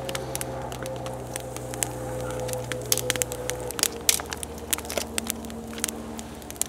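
Wood campfire crackling with irregular sharp pops, over a steady low hum whose tones shift about halfway through.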